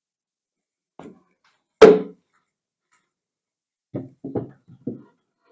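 Wooden knocks as a wooden brood box is set onto a beehive baseboard: a faint knock, a loud sharp knock just before two seconds in, then a quick run of four or five duller, hollow knocks near the end.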